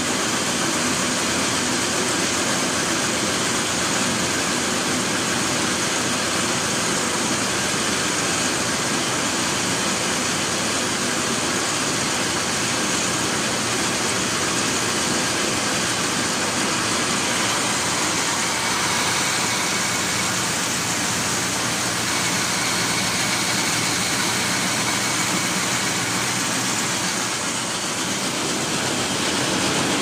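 Small silage chopper-baler running steadily, its electric-motor-driven chopping rotor and feed rollers giving a continuous machine noise.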